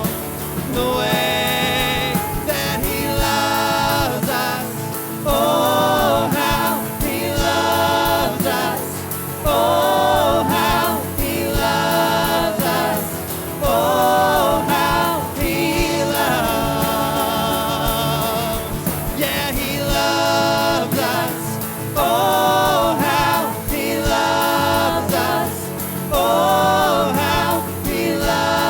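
Live worship band music with voices singing over it, a steady beat underneath.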